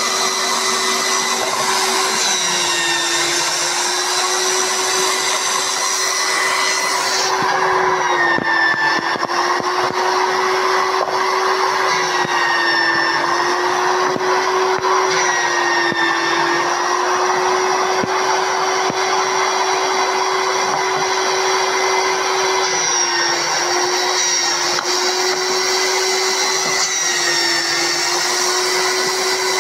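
Benchtop belt sander running steadily, its motor note sagging briefly every few seconds as a wooden block is pressed against the belt, over the hiss of the wood being sanded.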